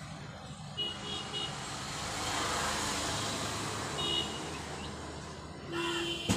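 Road traffic: a vehicle's noise swells and fades around the middle, with short high horn toots about a second in and again after four seconds. A lower horn blast comes near the end, followed by a sharp knock.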